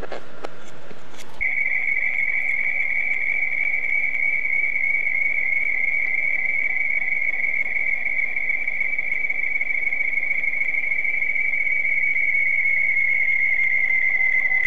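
Steady high-pitched electronic tone with fainter tones above and below it. It cuts in abruptly about a second and a half in, after some crackling clicks, then holds unchanged and sags slightly in pitch near the end.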